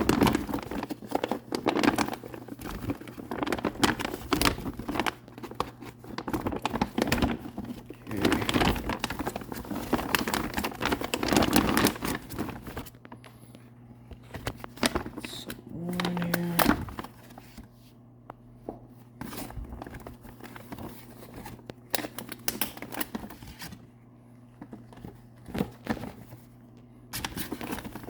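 A shipping package being unpacked by gloved hands: crinkling and rustling of packing material with tearing and scraping. The handling is busiest for about the first 12 seconds, then thins to scattered clicks and rustles, over a steady low hum.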